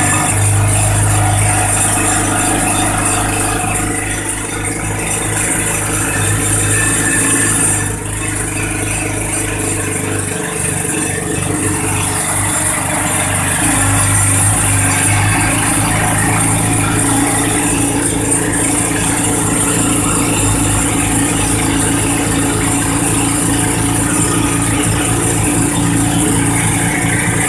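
A motor running steadily, a low hum with a constant hiss over it.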